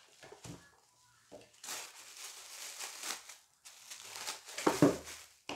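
Clear plastic packaging bag crinkling and rustling as it is pulled from a cardboard box and handled, in two long stretches, with a louder crackle near the end.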